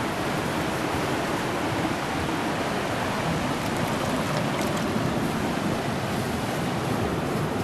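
Rushing river: a steady wash of fast-flowing water.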